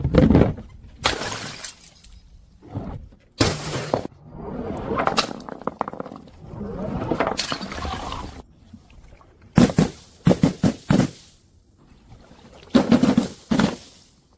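Glass bottles smashing, one after another: about half a dozen separate crashes, some followed by a second or two of scattering shards, and a quick run of sharp cracks around the middle.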